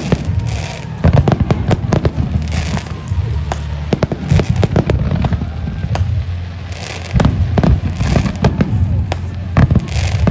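Fireworks display: rapid, overlapping bangs from volleys of aerial shells and comets over a continuous low rumble. Short bursts of hissing crackle come from crackling stars every few seconds.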